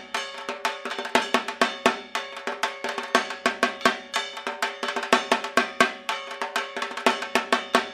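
Dhak drums beaten with sticks in a fast, driving festival rhythm, with dense strokes and sharp accents several times a second over a steady ringing tone.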